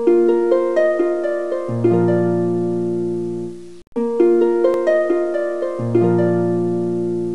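Background music: a gentle plucked, harp-like melody with a low sustained bass note joining partway through each phrase. The phrase repeats about every four seconds, with a short break between repeats.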